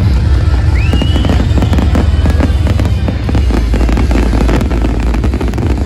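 A dense fireworks display: rapid bangs and crackling shells going off one after another, over loud music with a heavy bass. A short rising whistle sounds about a second in.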